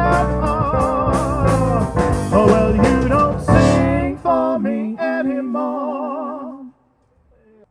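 A live band playing the final bars of an original song, with drums and cymbals, closing on a last hit about three and a half seconds in. Held notes with vibrato then ring out and fade away, ending about a second before the close.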